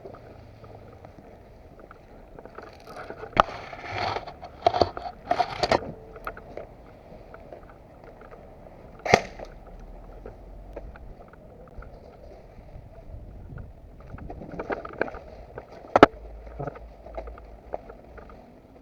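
A steady low hiss, with scattered sharp clicks and short bursts of rustling: one cluster about three to six seconds in, single clicks near nine seconds and sixteen seconds, and another cluster towards the end.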